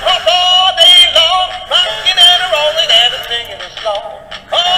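Singing plush Easter bunny toy (Rockin' Rabbit) playing its song: a synthetic-sounding singing voice over music, with a short break about four seconds in before it carries on.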